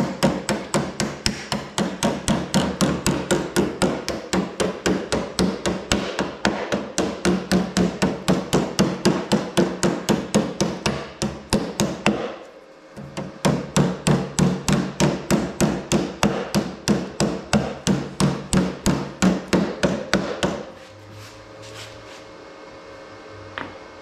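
Door-skin body hammer tapping on sheet steel, hemming a Camaro door skin's lip over the door frame edge, in a steady run of sharp strikes about three a second. The tapping pauses briefly a little past halfway, resumes, then stops about three-quarters of the way through, leaving a few faint knocks.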